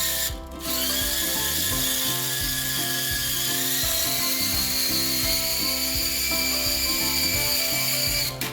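Electric motor and propellers of a remote-controlled flying Spider-Man toy whirring with a high whine. It cuts out briefly just after the start, then spins up again and runs steadily with the whine creeping up in pitch before stopping suddenly near the end.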